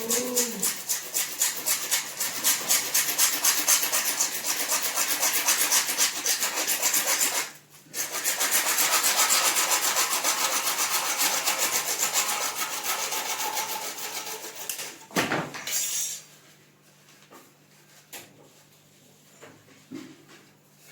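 Rapid back-and-forth rasping strokes of a hand tool working a uPVC pipe, pausing briefly about eight seconds in and fading out a little after fifteen seconds. A single knock comes near the end of the working.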